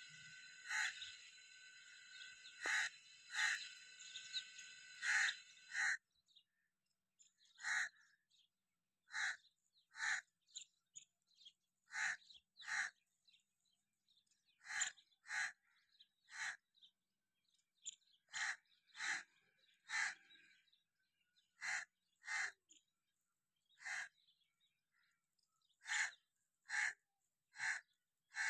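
A crow cawing over and over, one short call every second or so. For the first six seconds a steady high background noise lies under the calls and then cuts off abruptly.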